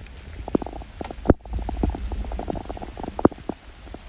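Water drops plopping irregularly into the standing water inside a nearly full dry well pipe, hollow and echoing, over a low rumble. A sharper knock comes about a second in.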